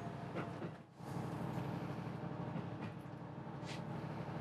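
HB-E300 series hybrid train running slowly out of the station, with a steady low hum from its engine and drive. A few sharp clicks from the wheels crossing points come through, one near the start and two near the end.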